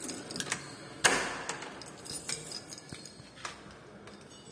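A bunch of keys jangling and a key working in a door lock, with one loud clack of the lock about a second in and scattered lighter clicks after it as the door opens.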